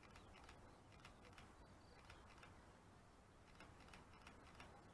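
Near silence: faint outdoor room tone with a few faint scattered ticks.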